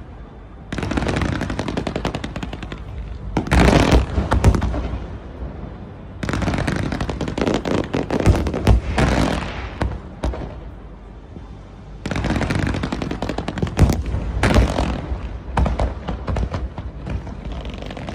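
Fireworks going off in rapid volleys of bangs and crackles, coming in several bursts a few seconds long with short lulls between them.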